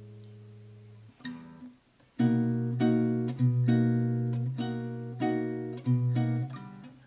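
1980s Del Vecchio Top Sound classical guitar being played. A chord rings out and fades, a few soft notes follow, and then from about two seconds in comes a run of strummed chords, each ringing and decaying, roughly two a second.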